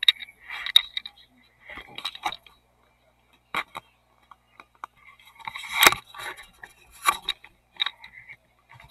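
Handling noise as a camera is picked up, moved and adjusted: scattered clicks, knocks and light scrapes with short pauses between them, the loudest knock about six seconds in.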